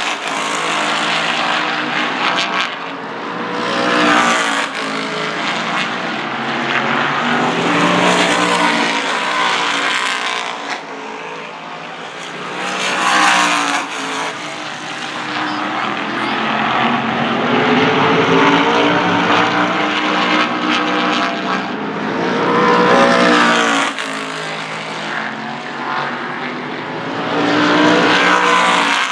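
Whelen Modified Tour race cars' V8 engines at racing speed on an oval, passing one after another. Each pass swells to a peak and the engine pitch drops as the car goes by, about six times.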